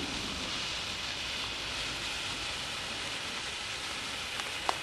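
Potassium nitrate and sugar smoke mixture burning in a foil-wrapped cap, giving a steady, rain-like hiss with a couple of faint pops near the end.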